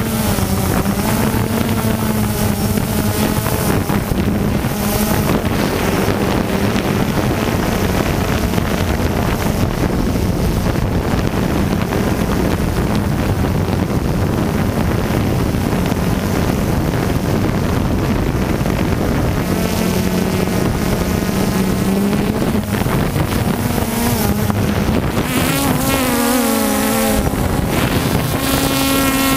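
Quadcopter drone's motors and propellers whining steadily in flight, with wind noise on the microphone. Near the end the pitch shifts up and down several times as the drone manoeuvres.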